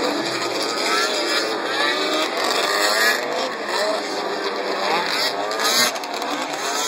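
Several racing snowmobile engines running hard as they go round the track, their overlapping whines rising and falling in pitch as they pass.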